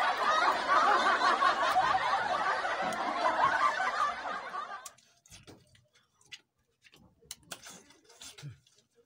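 Water from a hose or pipe pouring and splashing over a bather and onto a concrete floor, cutting off abruptly about five seconds in; after that only faint drips and small clicks.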